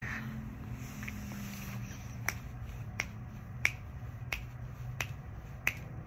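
Fingers snapping a steady beat, about three snaps every two seconds, starting about two seconds in, over a low steady hum.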